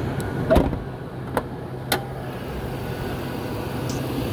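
A steady low hum, as of the 2002 Chevy Tahoe's V8 running at idle, with three sharp knocks in the first two seconds, the loudest about half a second in.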